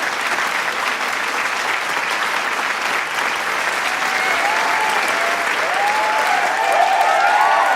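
A large crowd applauding with dense, steady clapping. Cheering voices and shouts rise over the clapping in the second half and grow louder near the end.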